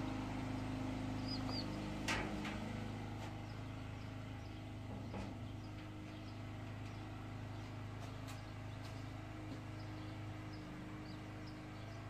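A steady low mechanical hum, with two faint high chirps about a second and a half in and a few scattered light clicks and knocks, the sharpest at about two seconds.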